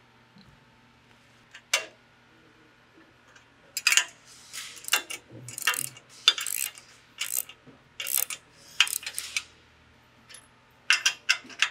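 Socket ratchet wrench clicking in short runs as the lock nuts on the tire carrier's accessory-hitch bolts are cinched down, with small metal clinks. There is a single click just under two seconds in, then runs of ratcheting from about four seconds in until past nine, and again near the end.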